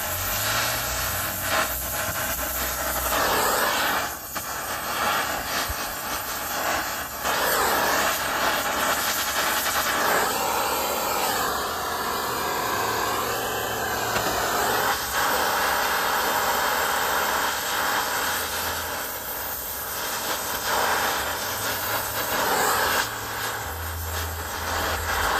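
Brazing torch flame hissing steadily as copper refrigerant lines are brazed onto the stubs of a new AC compressor, the hiss wavering as the torch is moved.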